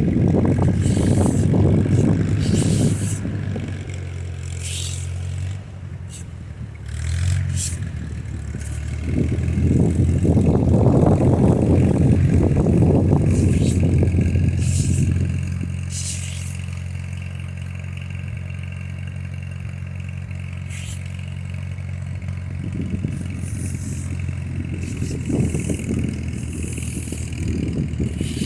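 A vehicle engine running steadily, its tone dropping briefly and picking up again about six to seven seconds in, with strong gusts of wind buffeting the microphone and a few light clatters and scrapes.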